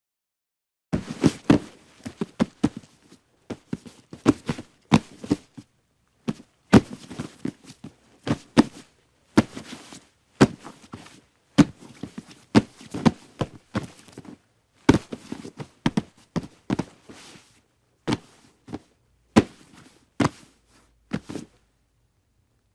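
Hooves stepping on hard ground: a long run of irregular sharp knocks, one or two a second and sometimes in quick pairs, that starts about a second in and stops shortly before the end.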